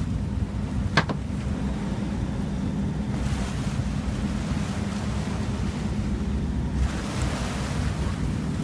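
A boat's engine running steadily, with sea and wind noise on the microphone; a sharp knock about a second in, and water splashing at the hull from about three seconds in as a hooked fish is brought alongside.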